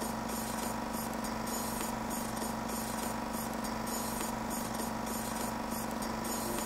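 A steady machine-like electronic drone with a low throb pulsing about three to four times a second under a constant hum, the ambient intro of the film's soundtrack.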